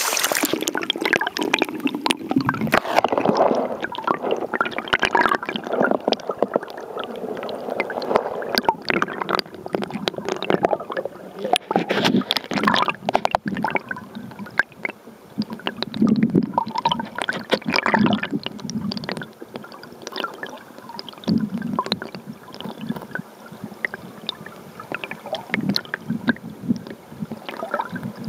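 Muffled gurgling and sloshing of river water heard through a camera held underwater, with many irregular knocks and clicks.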